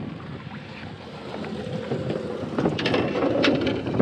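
Steady wind and water noise around a small open fishing boat, with a few light clicks and knocks starting about two and a half seconds in.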